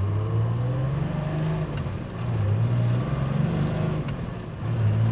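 1995 Dodge Ram's 5.9-litre 12-valve Cummins diesel with a K27 turbo accelerating through the gears, its note climbing and then dropping at two upshifts, about two and four seconds in, with a high turbo whistle rising and falling along with it. It is fueled heavily through the mid-range, enough to smoke far too much.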